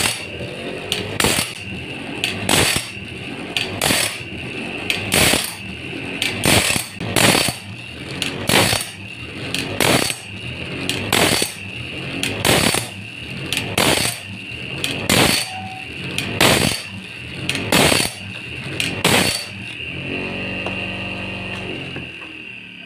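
Homemade automatic bandsaw-blade sharpener running: its electric grinding wheel whines steadily, with a rasping grind about every two-thirds of a second as the wheel drops onto each tooth. Near the end the grinding stops and a lower motor hum fades away.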